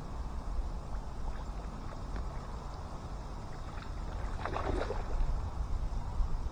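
A hooked fish splashing at the surface close to the bank: a short flurry of splashes about four and a half seconds in.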